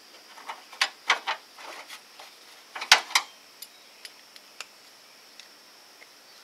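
Ratchet wrench clicking as a socket tightens a radiator hose clamp. There are short bursts of sharp clicks about a second in and again around three seconds, then a few faint ticks.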